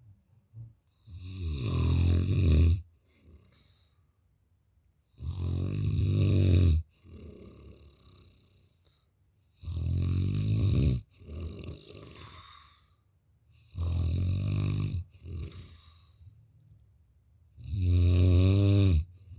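A sleeper snoring loudly: five rasping snores about four seconds apart, with softer breathing sounds between them.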